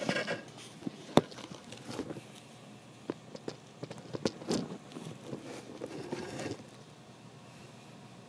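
A cat rolling and rubbing against a carpeted scratching-post base on a wooden floor: scattered light clicks, taps and soft rustles, with one sharp click about a second in and a spell of rustling in the middle that dies down near the end.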